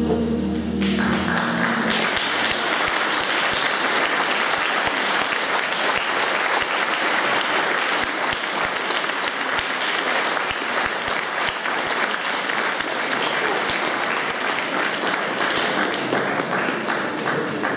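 A piece of music ends about a second in and an audience applauds, steady clapping that dies down near the end.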